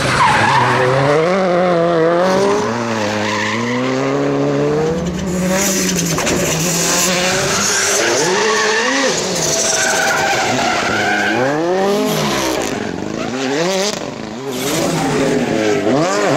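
Rally car engines revving hard through tight corners, one car after another, the pitch climbing and dropping sharply with each gear change and lift off the throttle, with tyres skidding on tarmac.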